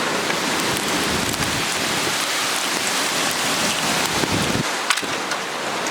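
Heavy downpour: rain falling hard and steady, with faint scattered taps of drops striking close by.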